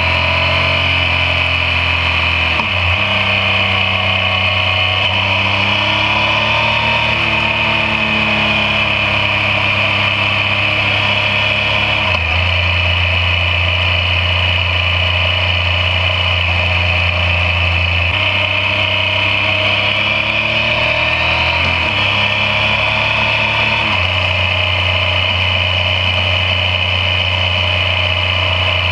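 Yamaha MT-09 motorcycle's inline three-cylinder engine pulling the bike along at road speed. Its pitch climbs under throttle and drops abruptly several times as it changes gear, over steady wind and road noise.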